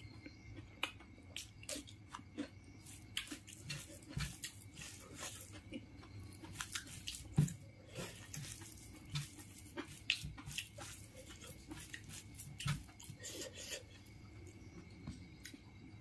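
Faint eating sounds of a person eating rice by hand: chewing with irregular mouth clicks and smacks, and fingers mixing rice and curry on a banana leaf.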